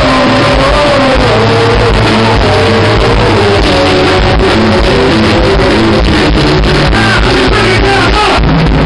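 Live band music played loud: a voice sings a wavering melody over a steady beat and bass. The recording is rough-sounding.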